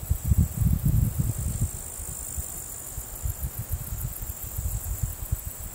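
Outdoor ambience: wind buffeting the microphone in low gusts, strongest in the first two seconds and then easing, over a steady high trill of insects.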